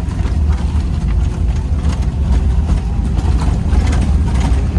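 A vehicle driving on a rough road: a steady low engine and road rumble with small knocks and rattles from the bumps.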